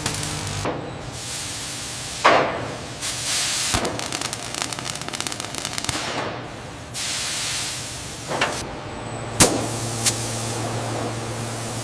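Factory assembly noises: a few sharp knocks, two spells of hissing air, and a rapid rattle of clicks in the middle, over a steady low hum.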